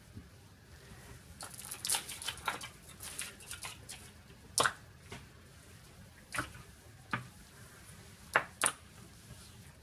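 Foil wrapper of a Kinder Surprise chocolate egg crinkling and rustling as it is peeled off, followed by a few separate sharp cracks and clicks as the chocolate shell is broken open and the yellow plastic toy capsule inside is handled. The last two clicks come close together near the end.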